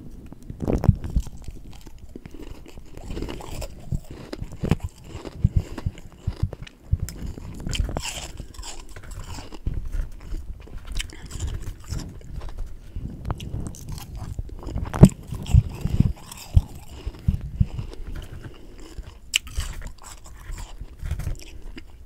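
A person biting and chewing humidifier freezer frost close to the microphone: an irregular run of crisp crunches through the whole stretch, the loudest about 15 seconds in.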